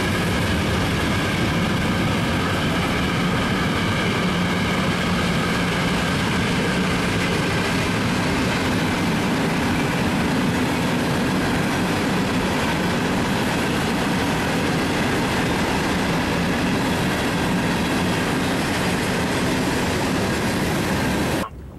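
Freight train of empty hopper and gondola cars rolling past on the rails: a steady, loud rumble of steel wheels on track, with faint high wheel squeal in the first half. It cuts off suddenly near the end.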